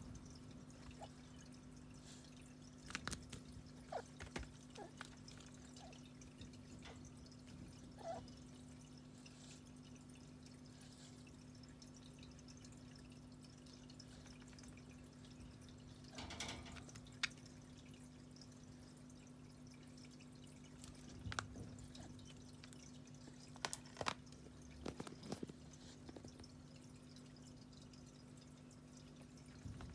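A kitten batting a toy mouse makes faint, scattered taps and clicks, in a few small clusters, over a steady low room hum.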